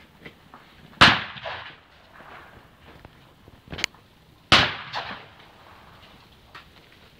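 Two shotgun shots at clay targets, about three and a half seconds apart, each a sharp bang with a short echoing tail.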